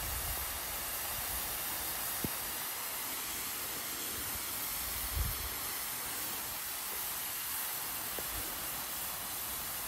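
Thompson Model 170 full-circle brass lawn sprinkler running, its nozzle throwing a heavy spray of water with a steady hiss.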